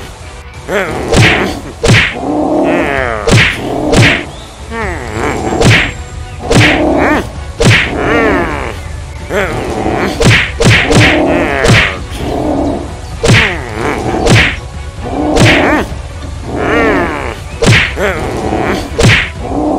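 Cartoon fight sound effects: a steady run of sharp whacks and thuds, one every half-second to second, with sliding, falling pitched effects between the blows.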